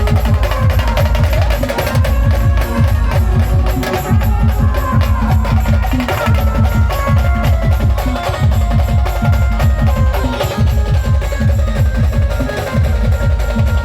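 Maharashtrian village band playing: heavy, fast drumming with a steady stream of bass-drum strokes under a loud melody line.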